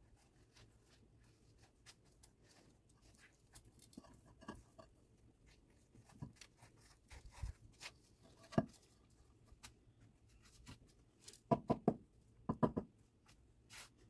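Faint scraping and soft knocks of concrete paving tiles being lifted and set back into a garden path by hand, with a cluster of louder knocks near the end.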